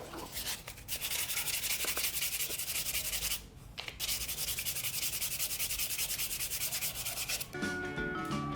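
Sanding during the restoration of an electric blower: a rasping hiss in quick, even strokes that pauses briefly twice. Music takes over near the end.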